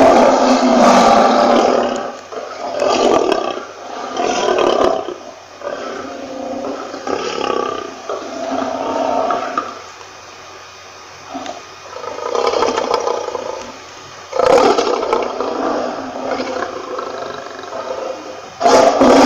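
Lion roaring in repeated rough bouts. They are loud over the first few seconds, die down to a lull about halfway through, and come back loud in the last third.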